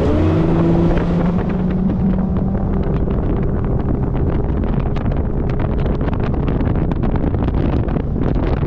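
Bass boat's outboard motor speeding up, then running steadily at speed, with wind buffeting the microphone and a rapid patter of knocks from the hull on the water.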